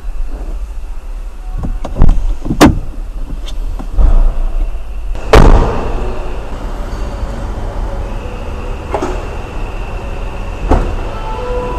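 Doors of a Jaguar XE L saloon being worked: a few sharp knocks and clunks, then one heavy door shutting with a ringing thud about five seconds in. Near the end there are lighter clicks as the boot latch is released from the key fob, over a steady low hum.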